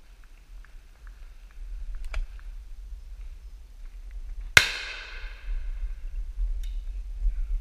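A shotgun fires once at a high driven pheasant, a loud crack with a long ringing tail about halfway through. Two much fainter sharp cracks come about two seconds before and after it. A low wind rumble sits on the microphone.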